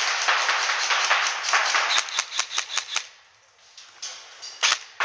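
Airsoft replicas firing: sharp snapping shots, at times in quick runs, over a steady hiss. The hiss drops away about three seconds in, leaving a few more shots near the end.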